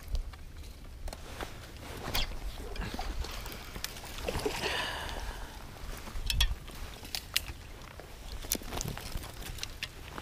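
A small bass splashing at the surface as it is reeled in and swung out of the water, a little before halfway through. Scattered sharp clicks come before and after the splash, and wind rumbles on the microphone.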